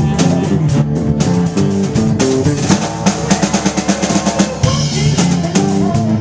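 A live band playing an instrumental passage: electric guitar over a full drum kit with kick and snare. About halfway through there is a burst of rapid repeated strokes lasting a second or two.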